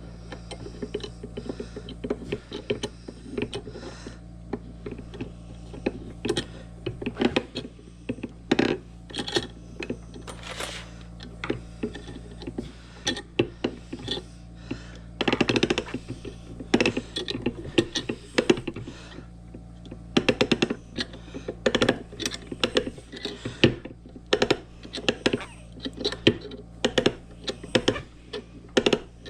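Irregular clicks, taps and knocks of small metal parts and hand tools being handled while a new spindle bearing is fitted into a key-cutting machine, over a steady low hum.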